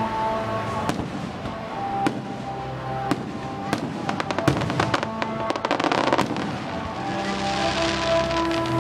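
Aerial fireworks bursting, with a dense run of crackling pops about four to five seconds in, over music playing in the background.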